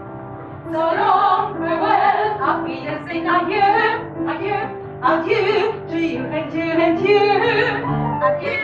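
Music: a woman singing with instrumental accompaniment, her voice coming in under a second in over held notes.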